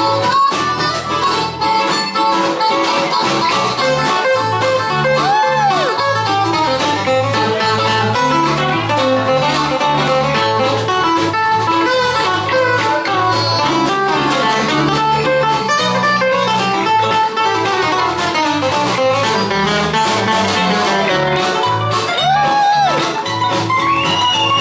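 Acoustic string band playing an instrumental break of a blues tune: guitar and mandolin picking over a steady bass line, with light percussion and a few bent notes.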